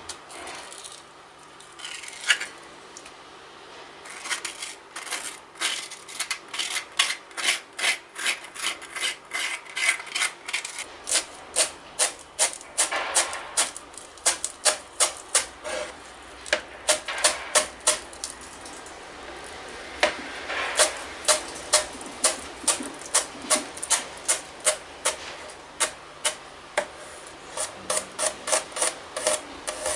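Chef's knife chopping fresh coriander on a plastic cutting board: quick, sharp knocks about two to four a second in runs with short pauses, starting about four seconds in.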